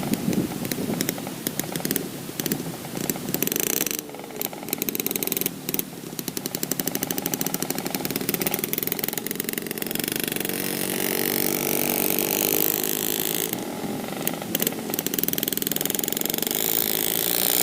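Yamaha RX King 135 two-stroke motorcycle engine running while riding, its note rising and falling with the throttle and dropping off briefly about four seconds in.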